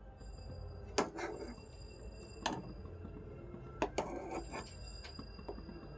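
Steel ladle clinking and scraping against a metal kadai while scooping cardamom pods out of thickened boiling milk: a few sharp clinks, roughly a second apart, with two close together near the middle, over a low steady hum.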